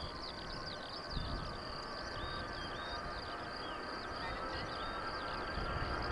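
Airbus A320 jet engines on a takeoff run, a steady rush that slowly grows louder. Many short, high chirping calls go on over it.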